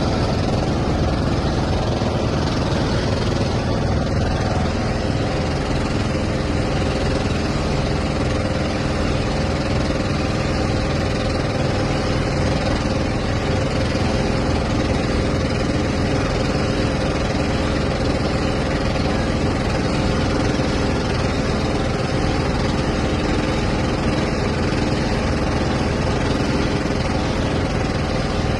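A motor engine running steadily at an even pitch, a constant hum and rumble with no change in speed.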